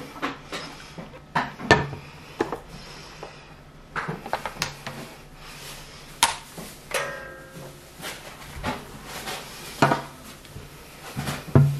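Irregular plastic clicks and knocks as a NutriBullet cup is twisted onto its extractor blade and handled, with things set down on a table, and a brief squeak about seven seconds in.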